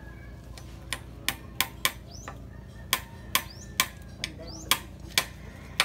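Repeated sharp knocks of a long bar jabbed down at the foot of a wooden post, tamping the backfill to set the post, in runs of about two to three strikes a second beginning about a second in. A bird gives short rising chirps now and then.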